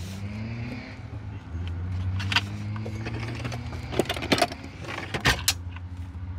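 A low engine hum runs throughout, its pitch rising slightly over the first few seconds. Over it come several sharp clinks and knocks of items being handled in a metal ute-canopy toolbox, clustered about four to five and a half seconds in.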